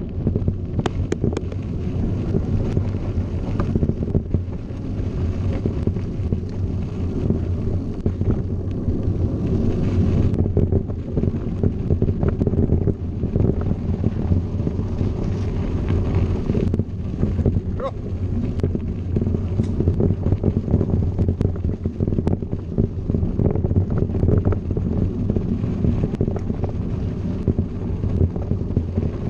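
Wind buffeting the microphone and mountain bike tyres rumbling over a gravel road, with frequent sharp clicks and knocks from the bumps.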